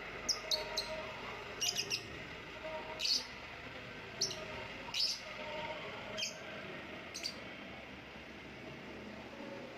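Lovebird giving short, sharp, high chirps, some single and some in quick runs of two or three, over steady background noise. The chirps thin out and stop after about seven seconds.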